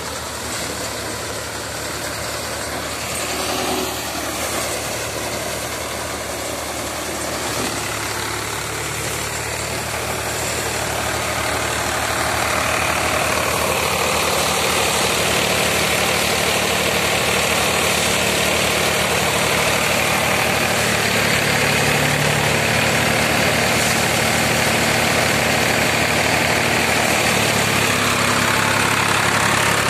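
Powertrac tractor's diesel engine running steadily, driving a Swan Agro paddy thresher that is threshing rice, its drum adding a whirring rush over the engine. It grows louder about twelve seconds in.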